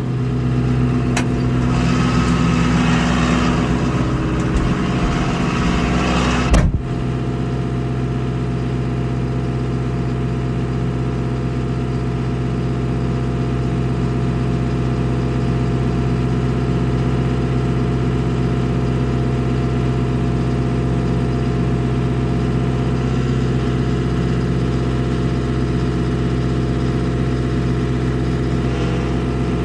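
A vehicle engine running steadily. For the first six or so seconds a louder rushing noise lies over it; this cuts off sharply with a short thump about six and a half seconds in, leaving the engine alone.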